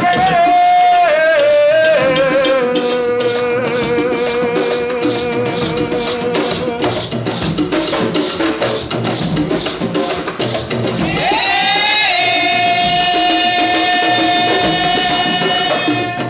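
Live Garifuna folk music: maracas (sisira) shaken in a steady beat about twice a second over hand drums. A voice holds long notes above them, one sliding down and sustained near the start, another rising in and held from about eleven seconds in.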